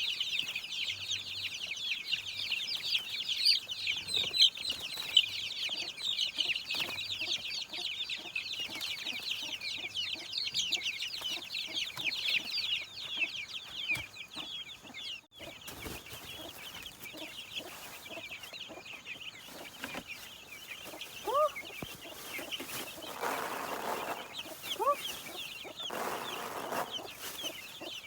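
A crowd of young chicks peeping continuously, many high chirps overlapping. About halfway through it abruptly becomes fainter, and a few short lower rising calls come in near the end.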